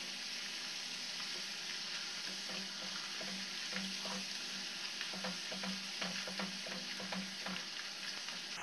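Raw potato slices deep-frying in very hot oil, the oil sizzling and bubbling steadily with scattered crackles, while a wire skimmer stirs and turns them in the kadhai. The vigorous bubbling is moisture still cooking out of the slices; it dies down as the chips turn crisp.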